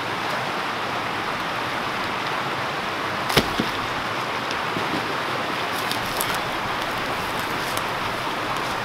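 Steady rush of a shallow creek running over rocks, with one sharp knock about three and a half seconds in and a few faint clicks later.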